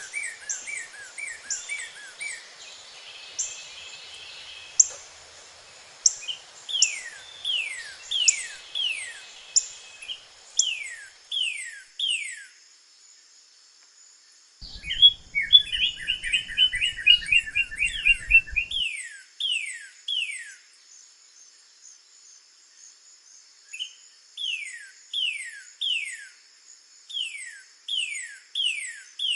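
Northern cardinal singing: phrases of clear down-slurred whistles, about two a second, with a fast run of trilled notes in the middle. Faint high chips and a steady high hiss run behind the song.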